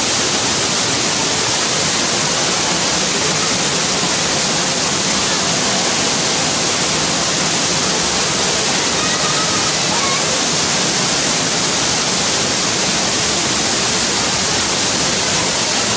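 Waterfall cascading down rock close by: a steady, loud rush of falling water with no breaks.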